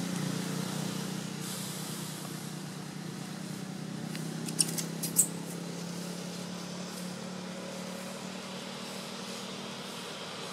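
A steady low mechanical hum, easing off slightly at first, with about four sharp clicks in quick succession about halfway through.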